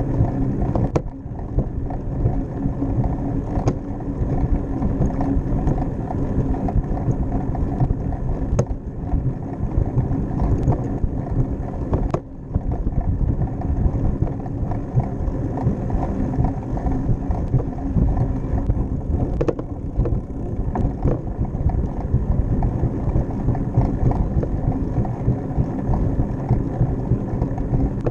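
Bicycle ride noise on a rear-facing bike-mounted camera: a steady low rumble of tyres on a concrete path and passing air, with several brief sharp knocks.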